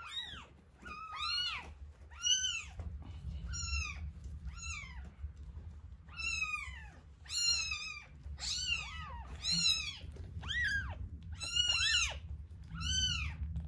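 One-week-old kitten crying over and over in high-pitched mews, each rising then falling in pitch, about one or two a second.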